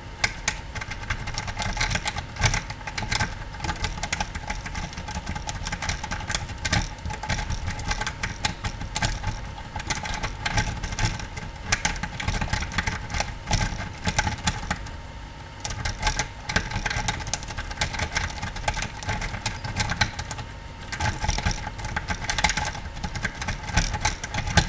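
Bogota rake scraping rapidly in and out of a Schlage pin-tumbler lock, a dense run of metallic clicks and scrapes as the pins bounce, with a couple of brief pauses; the raking that sets the pins and opens the lock.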